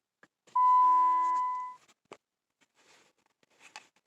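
An electronic chime sounds once: a steady tone held for about a second and then fading away, followed by a few faint clicks.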